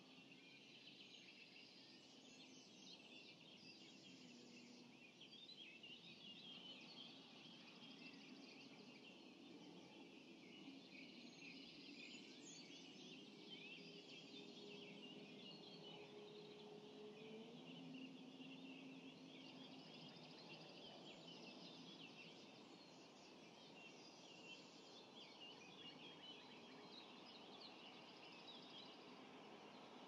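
Faint dawn chorus of many songbirds singing and calling at once, a dense unbroken mass of overlapping high chirps and trills.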